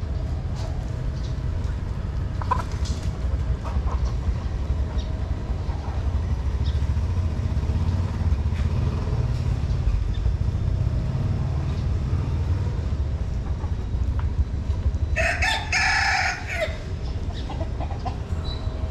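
A kitten eating dry kibble and wet food, with small scattered crunches over a steady low rumble. Near the end a single loud call, about a second and a half long, rises above everything else.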